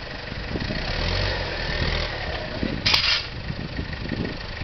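Pickup truck engine running while the truck is stuck on a steep slope, picking up briefly about a second in. A short sharp crack about three seconds in.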